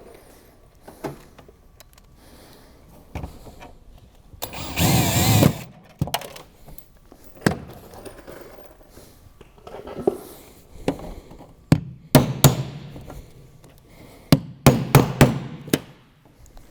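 A drill runs for about a second, its pitch wavering, then a scatter of sharp knocks and taps from tools and material being handled, bunched in two quick clusters near the end.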